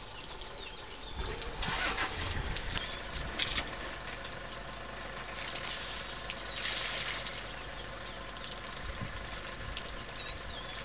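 An African elephant spraying water from its trunk over its body, a hissing splash about two seconds in and a longer one around six to seven seconds in, with water dripping between. A vehicle engine idles steadily underneath.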